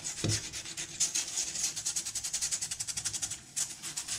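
Toothbrush bristles scrubbing an oak beam wet with oxalic acid solution, in rapid, even back-and-forth strokes, with a short pause near the end.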